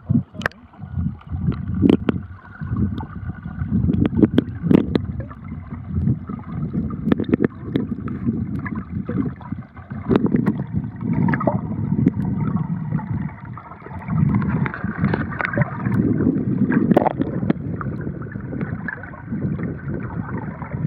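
Muffled rushing and gurgling of river current heard through a camera held underwater, with scattered knocks and bumps against the camera.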